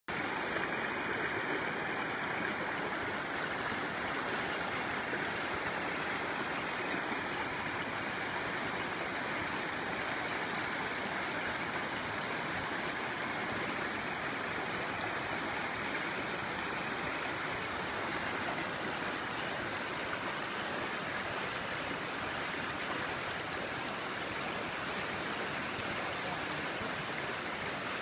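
Shallow stream flowing over a bed of rocks and stones, with a small riffle of white water: a steady, even rush of water.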